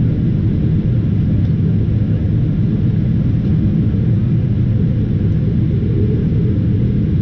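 Steady low rumble of a Boeing 777-300ER's engines and airflow heard inside the cabin during the descent, even and unchanging throughout.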